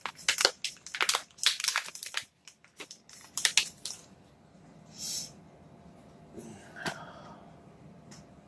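Plastic bait packet of soft-plastic paddle fry being opened: a quick run of crinkling and crackling for the first few seconds, then a brief rustle and a single light knock.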